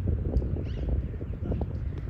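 Outdoor ambience: a low rumble of wind buffeting the microphone, with a short bird chirp about two-thirds of a second in.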